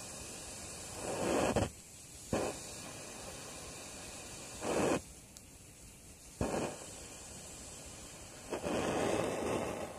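Valtock 2000 automatic alcohol blow lamp burning, its blue jet flame giving a steady hiss. Five louder rushes break through it, some brief and two lasting over half a second, the longest near the end.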